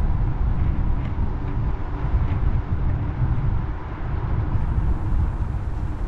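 Steady low rumble of wind buffeting the camera microphone and tyre noise while riding a Kaabo Wolf King GT electric scooter along a paved path, with a faint steady high tone underneath.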